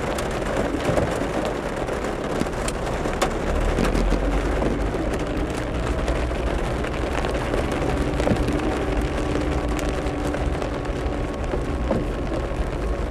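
Heavy rain pelting a car's roof and windscreen, heard from inside the car as a dense steady patter of countless sharp drop ticks, with the car's low steady hum underneath.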